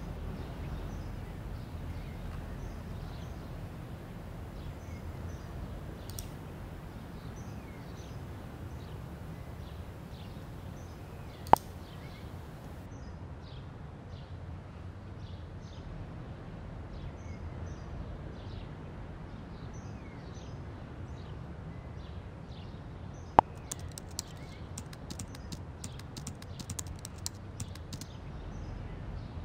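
Laptop keyboard typing as a run of quick light clicks over the last few seconds, over a low steady room hum with small birds chirping throughout. Two single sharp clicks stand out, one a little before halfway and one just before the typing.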